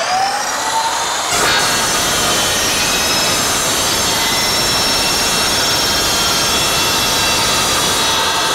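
Evolution 14-inch chop saw with a Rage multipurpose blade: the motor's whine rises as it spins up, then about a second in the blade bites into Kindorf steel strut channel and cuts through it with a steady, loud metal-cutting noise.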